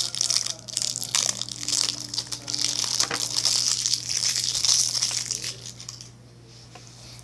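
Close crinkling and crackling handling noise from a just-opened container of clear slime, with many small clicks, lasting about six seconds before dying down.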